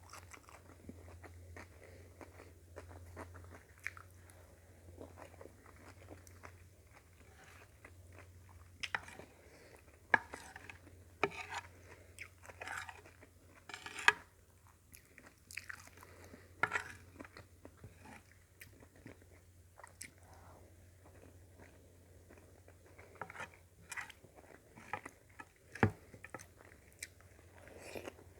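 Close-miked chewing and mouth noises of a person eating a meal of sautéed vegetables, sardines and rice, with soft irregular smacks and a few sharper, louder clicks.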